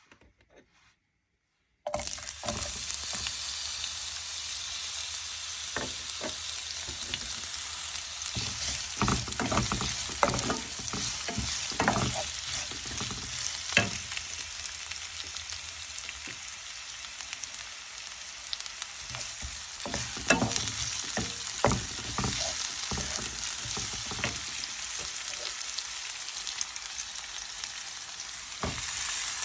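Sliced onions sizzling in hot oil in a nonstick frying pan, stirred and scraped with a wooden spatula, with scattered knocks of the spatula against the pan. The sizzle starts abruptly about two seconds in and grows louder near the end as sliced pork goes into the pan.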